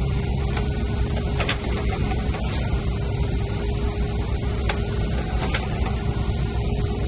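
Heavy construction machinery engine running steadily, a constant low rumble with a steady hum, with a few sharp ticks over it.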